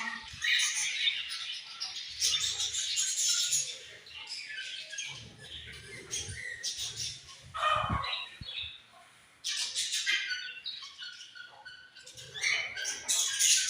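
A group of budgerigars chirping and chattering continuously, with wings fluttering now and then and a short lull a little past the middle.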